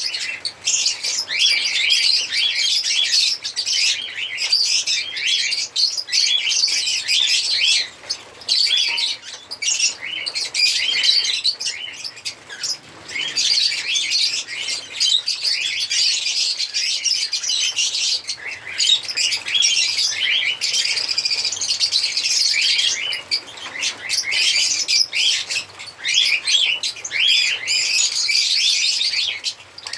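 A group of lovebirds chirping and twittering continuously, with rapid, high-pitched overlapping calls and only brief pauses.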